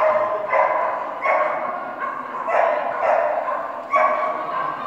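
Dog barking repeatedly, about six sharp barks in a few seconds.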